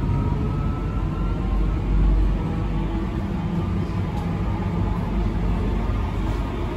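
Running noise inside a Queensland Rail suburban electric train in motion: a steady low rumble with a faint whine.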